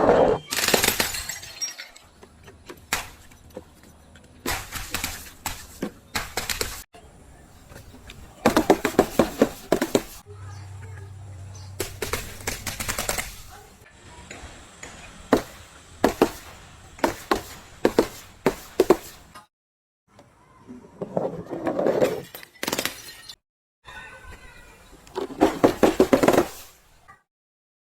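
A series of things being crushed and broken: bursts of crunching and cracking, some with a glassy shatter, separated by brief pauses, with a low hum for a few seconds around the middle.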